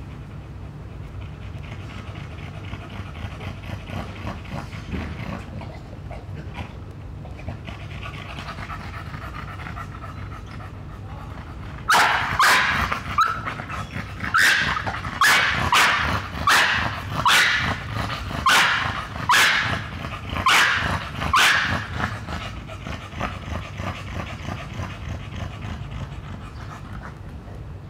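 American bully dog panting, then, about twelve seconds in, barking about a dozen times in quick succession over some ten seconds before going back to panting. It is frustrated barking at a ball it cannot reach.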